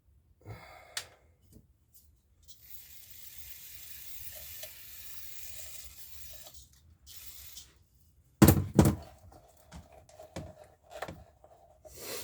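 Handling noises from work on a chainsaw's plastic oil tank: a few light clicks, a steady hiss lasting about five seconds, then a couple of loud knocks about eight seconds in followed by clattering.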